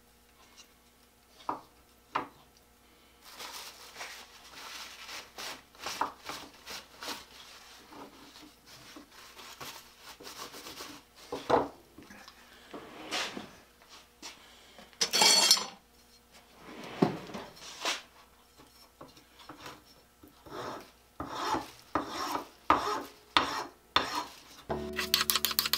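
Hand work on a wooden plane tote at a workbench: a few knocks and clatters as it is handled and set in a vise, then repeated scraping and filing strokes on the wood. The strokes trim off squeezed-out epoxy from the glued repair.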